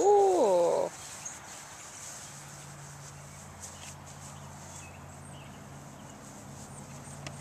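A short, loud cry that falls in pitch, lasting under a second, at the start. After it only a faint, steady low hum remains.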